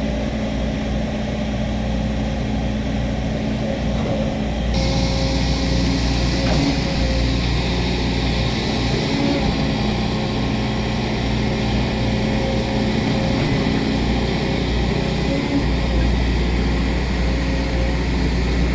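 Volvo 210 excavator's diesel engine running steadily under work. A brighter hiss joins abruptly about five seconds in.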